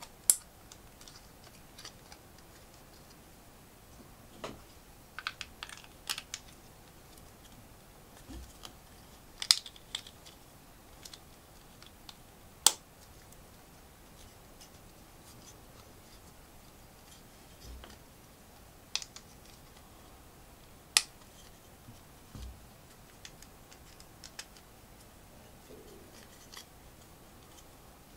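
Plastic LEGO pieces clicking and tapping as they are handled and pressed together: sparse sharp clicks and short clusters of clicks with long pauses between, plus a few soft low knocks on the table.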